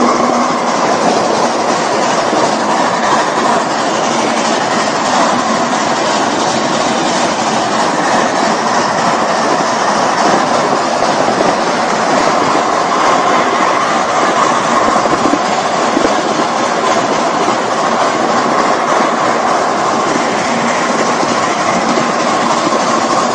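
Live-steam 4-4-2 Atlantic ride-on train running along its track, heard from on board: a steady rush of wheels rolling on the rails.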